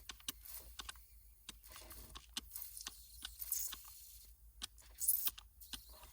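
Nitrogen escaping from a leak near the TXV on a pressurised evaporator coil: two short, high hisses about three and a half and five seconds in, among many small clicks and crackles of handling at the coil.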